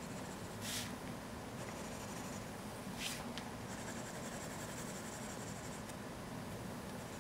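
Graphite pencil scratching on drawing paper as lines and shading are drawn, with two quick louder strokes about one and three seconds in and lighter scratching between and after them. A low steady hum sits underneath.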